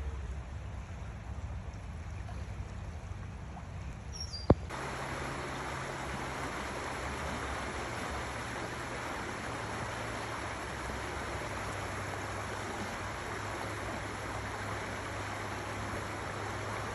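Stream water running steadily. A single sharp click comes about four and a half seconds in, and from then on the water is louder.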